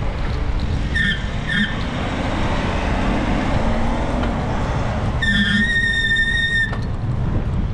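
Wind rumbling on the microphone and traffic noise during a bicycle ride on a city street, with two short high chirps about a second in and a steady high-pitched squeal lasting about a second and a half past the middle.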